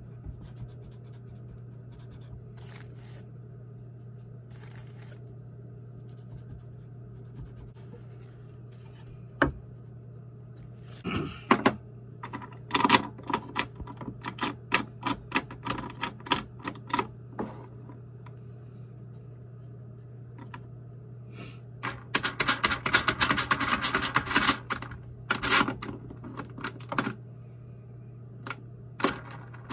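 Clamps being set on a woodworking bench: scattered clicks and knocks of clamp parts against the wood and the table, with a single sharp knock about a third of the way in and a dense run of rapid clicking about three quarters of the way through. A steady low hum sits underneath.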